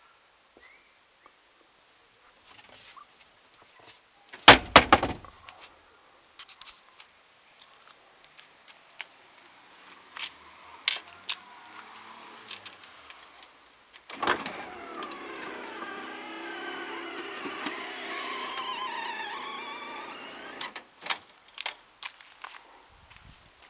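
A car door shuts with a heavy thud about four and a half seconds in, followed by scattered clicks and knocks. About fourteen seconds in, the wagon's electric tailgate motor runs for about six and a half seconds with a wavering whine, then stops.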